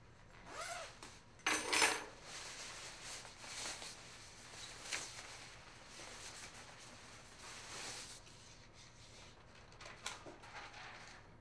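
A dark fabric jacket rustling as it is pulled off and hung on a hook, with scattered light knocks and clinks. A short clatter about a second and a half in is the loudest sound.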